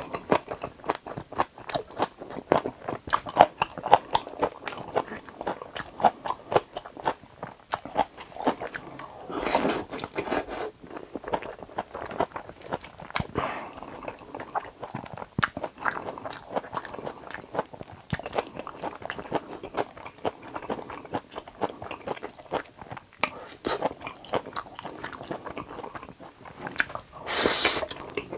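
Close-miked eating of Chapagetti noodles with fried eggs: steady wet chewing and sticky mouth clicks, with two louder slurps, about ten seconds in and near the end.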